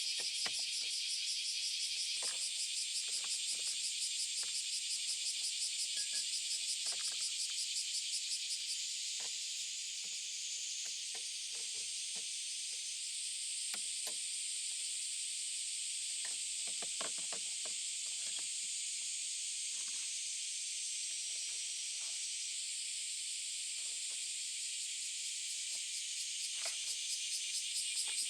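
Insects chirping in a dense, fast-pulsing high trill, steadier through the middle, with scattered faint light clicks and taps beneath.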